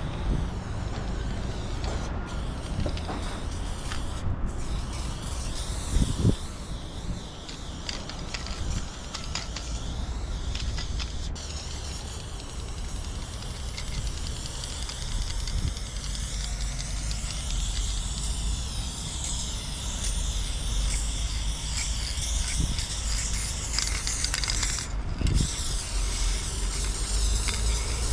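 Aerosol spray paint can hissing as paint is sprayed onto a wall, in long bursts with a few brief breaks. A steady low rumble runs underneath.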